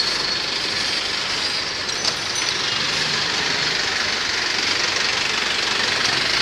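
Steady street traffic noise: an even hiss of vehicles and engines on a busy narrow road.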